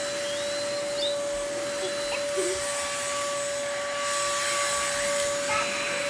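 Red corded Dirt Devil handheld vacuum running steadily: a constant motor whine over the rush of air.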